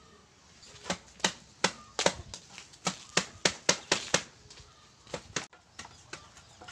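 A rod rammed down again and again inside a long bamboo pole, punching through the nodes to hollow it out: about a dozen sharp knocks, roughly three a second, starting about a second in and thinning out after about four seconds.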